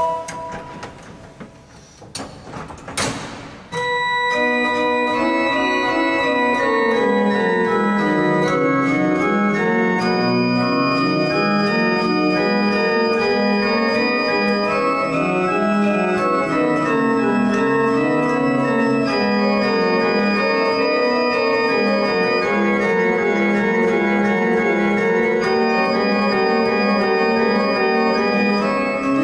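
Bonifazi pipe organ: a held chord dies away in the room's echo, two sharp knocks follow, and at about four seconds the organ starts again, several lines moving at once at a steady pace.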